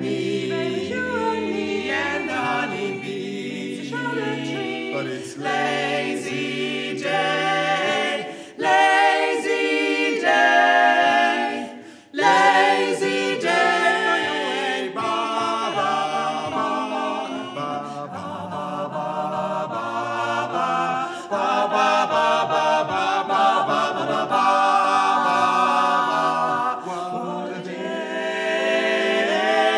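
Mixed barbershop quartet of three women and one man singing a cappella in close four-part harmony, with a brief break about twelve seconds in.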